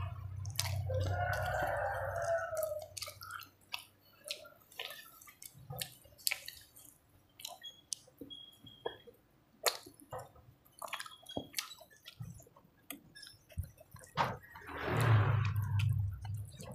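Close wet eating sounds of a person chewing a mouthful of rice and fish curry: a long run of sharp, wet clicks and smacks from the mouth. A louder low rumble with a hiss is heard at the start and again near the end.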